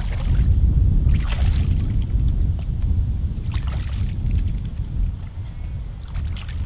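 Wind rumbling on the microphone, with a few splashes and sloshes of a person wading in shallow river water and dipping his hands into it.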